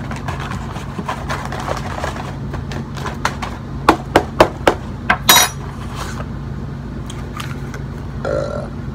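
A cardboard box of cornstarch and its inner bag being handled and shaken, with light rustling and crackling. About four seconds in there is a quick run of six loud, sharp clicks. A steady low hum runs underneath.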